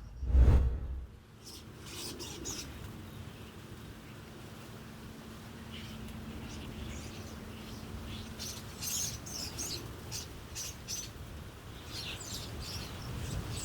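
Birds chirping in short scattered calls over a quiet outdoor background, after a brief loud low thump about half a second in.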